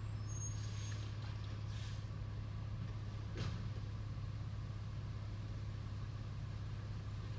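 Garbage truck engine running with a steady low drone while its hydraulic side-loader arm reaches out to a recycling cart and lifts it, with a single knock about three and a half seconds in.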